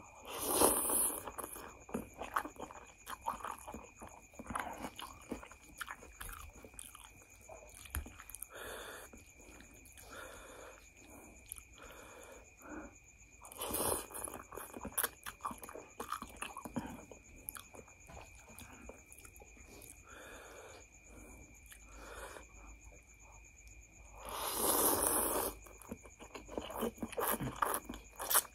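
Close-miked mukbang eating of chicken thukpa noodles: three loud slurps as forkfuls of noodles are sucked in, one just after the start, one about halfway and a longer one of about a second near the end. Between them come wet chewing and lip smacks.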